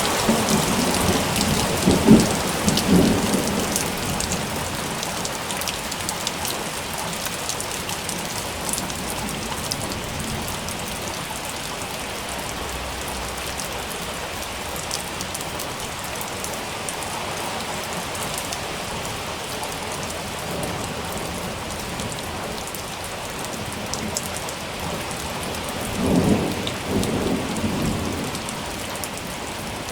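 Steady rain falling, with two low rolls of thunder: one about two seconds in and another near the end.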